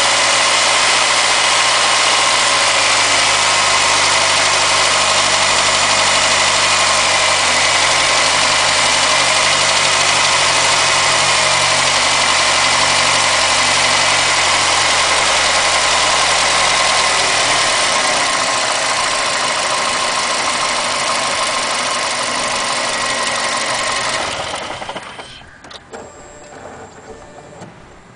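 Mazda 6 MPS's 2.3-litre turbocharged four-cylinder engine running steadily, the engine its owner films for a knock he hears at 1500 rpm. About 25 seconds in the engine sound stops, leaving only faint ticks.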